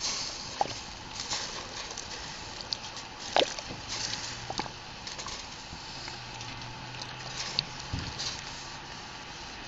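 Open wood cooking fire crackling with scattered sharp pops, under a stainless steel roaster of meat simmering in water with a steady sizzling hiss.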